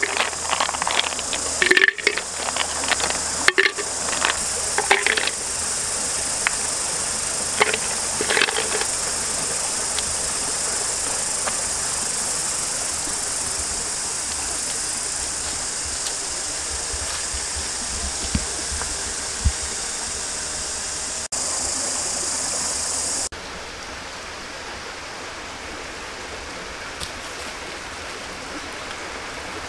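Forest ambience: a steady high-pitched insect drone that cuts off abruptly about three-quarters of the way through. Over it, a run of sharp clicks and light knocks comes in the first nine seconds, and a few low thuds come later.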